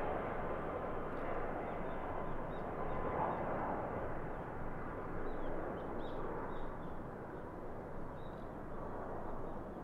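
Boeing 767 airliner's jet engines on final approach, a steady rush that slowly fades as the plane moves away.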